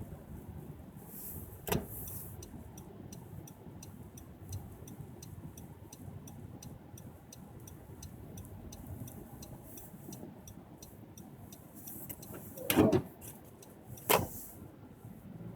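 Steady road and engine rumble inside a car being driven through snow. A fast, even run of faint ticks, about four a second, stops about twelve seconds in. Three sharp knocks are heard: one near the start and two close together near the end.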